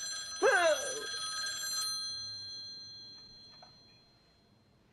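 Telephone bell rings once for just under two seconds, its tone dying away over the following seconds. A short cry, falling steeply in pitch, sounds over the start of the ring.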